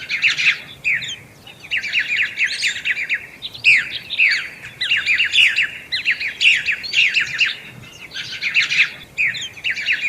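A thrush singing: phrase after phrase of rapid, high chirping notes, each phrase about a second long, with short pauses between them.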